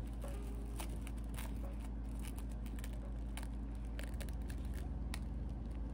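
Tissue paper crinkling and crackling in the hands as a sticker is slowly picked and peeled off the wrapping, with scattered small crackles throughout, over a steady low hum.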